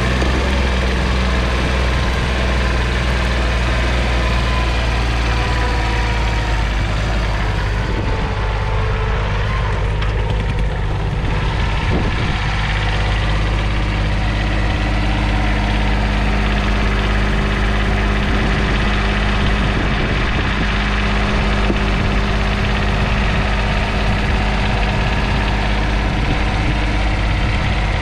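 1977 Kubota B7001 mini tractor's 0.8-litre three-cylinder diesel engine running steadily.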